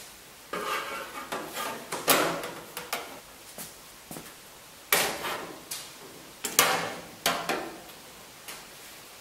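Metal clanks and knocks as a copper backing strip and a long-reach locking clamp are handled and set against a sheet-steel wheel-arch panel. There is a scatter of sharp knocks and clatter, the loudest about two, five and six and a half seconds in.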